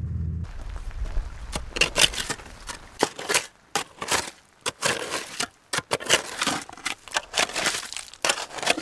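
A motor drone cuts off about half a second in, followed by irregular crunching and scraping of loose beach stones and gravel under a shovel and footsteps.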